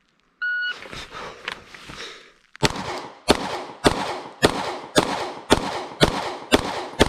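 A shot timer beeps once, followed by about two seconds of rustling as a Glock 48 9mm pistol is drawn from concealment. Then the pistol fires a steady string of shots about every 0.6 seconds, nine of them in all, each with a short ringing tail.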